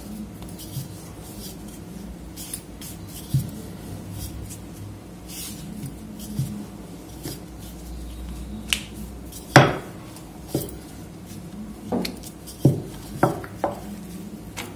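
Scattered knocks and taps of a wooden rolling pin and utensils on a kitchen countertop as dough is rolled out and handled, with the loudest knock a little past the middle and a quick run of several more near the end.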